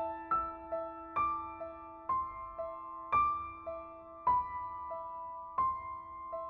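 Slow solo piano music: single notes struck about once a second, each fading away, over a held lower note.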